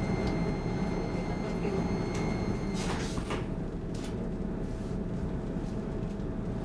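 Inside an SL X10 commuter train car standing at a platform: a steady low rumble of the train's onboard equipment, with a thin high steady tone that stops about three seconds in, followed at once by a short rushing noise and another brief one a second later.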